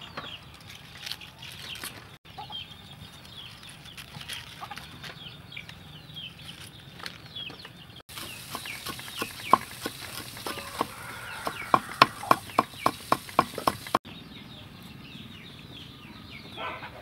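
Chickens clucking in the background throughout. In the middle comes a run of sharp cleaver chops on a wooden chopping block, about three a second near the end of the run, which are the loudest sounds.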